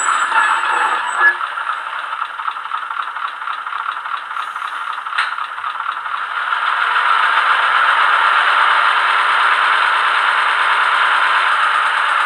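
ZIMO sound decoder of a Roco H0 model of the NS series 200/300 shunting diesel, playing the locomotive's engine sound through the model's small speaker: a steady, rattly clatter that gets louder about six and a half seconds in. A single sharp click comes about five seconds in.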